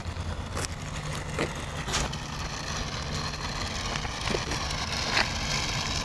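Toy remote-control car's small electric motor whirring as it drives on asphalt, over a steady low rumble, with a few light clicks.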